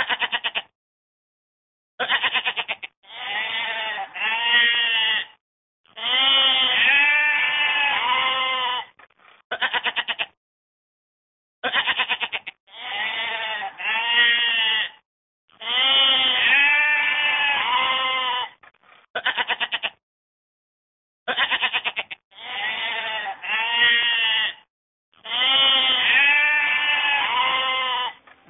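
Livestock bleating: quavering calls that break into rapid pulses and wavering pitch. The same stretch of calls repeats about every nine and a half seconds, a looped clip.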